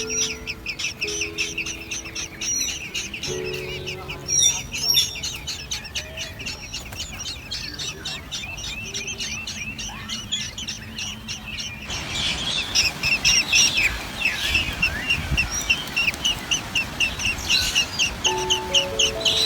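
Nestlings giving fast, repeated high begging chirps, several a second, that get louder partway through. Background music plays underneath at the start and near the end.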